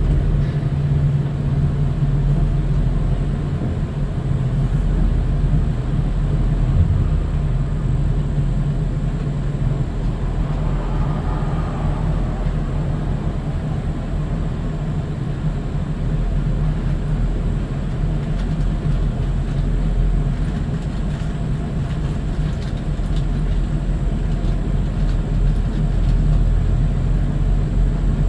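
Tow truck's engine running steadily to drive the winch while a van is slowly pulled up onto it: a continuous low rumble and hum.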